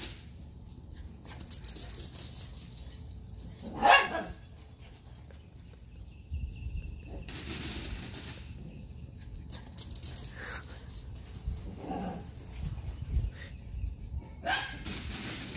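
Small dog barking: one loud, sharp bark about four seconds in, then a few fainter barks later on.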